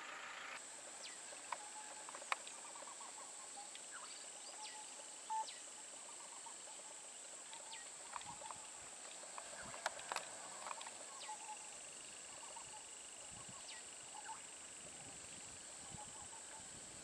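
Forest ambience: a steady high-pitched insect drone with many short bird chirps and whistled calls scattered through it, and a few sharp clicks.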